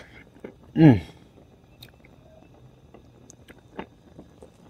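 A man eating: a short, loud hum falling in pitch about a second in, then faint scattered clicks of chewing.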